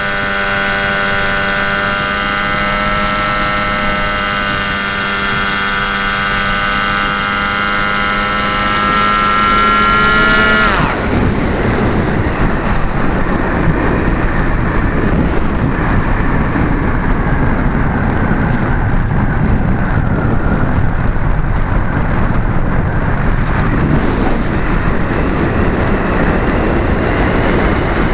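Onboard sound of an RC model airplane's motor and propeller running with a steady whine. About ten seconds in it is throttled off with a quick falling pitch. After that there is only wind rushing past the airframe as the plane glides.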